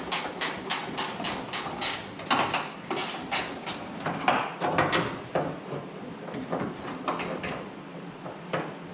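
A ratchet wrench clicking rapidly, about six clicks a second, as a hood bolt is worked loose, then a few scattered metal knocks and clanks.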